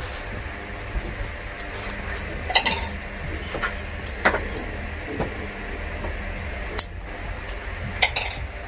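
Sharp plastic clicks and light knocks from handling and snapping together an Insta360 One R action camera, its plastic mounting bracket and selfie stick, about seven clicks spaced irregularly, over a low steady hum.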